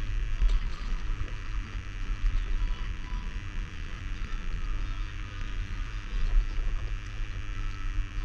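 Wind buffeting the microphone in a low, uneven rumble, over a steady hiss of sea water sloshing around a stand-up paddleboard.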